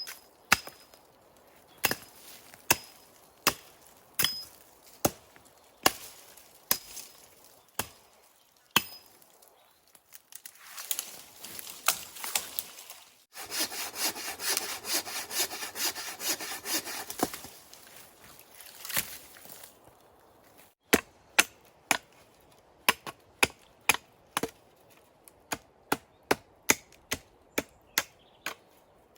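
Wood being worked by hand. First come sharp knocks about once a second, then several seconds of quick back-and-forth sawing strokes, then a faster run of knocks near the end.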